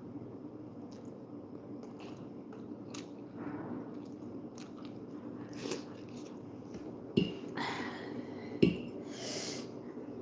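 A person chewing and slurping spicy instant noodles, with small wet clicks and short sucking hisses, over a steady low hum. Two sharp knocks about a second and a half apart near the middle are the loudest sounds.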